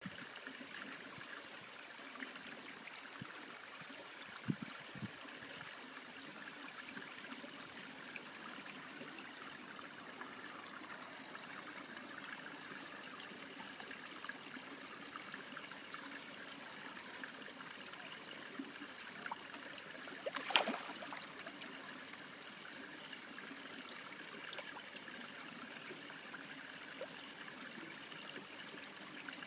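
Garden fish pond: a steady trickle of running water, with one sharp splash about twenty seconds in.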